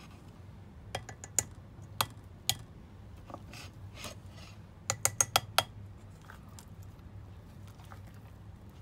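Silicone spatula scraping stiff meringue out of a stainless steel mixing bowl into a glass bowl, with sharp clicks and taps of the utensil and bowls knocking together. There are a few single clicks in the first few seconds, then a quick run of about five clicks around five seconds in.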